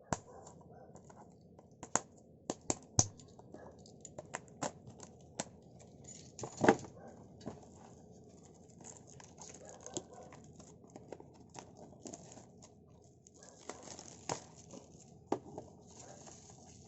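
Cardboard trading-card box and its plastic wrapping being torn open and handled: crinkling and tearing with many sharp clicks and taps. The loudest tear comes about halfway through, and a longer stretch of rustling follows near the end.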